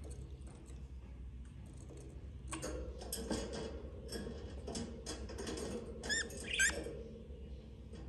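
Budgies in a nest box giving thin, squeaky chirps among scratchy clicks, starting a couple of seconds in, with two clearer short calls that rise and fall about six seconds in.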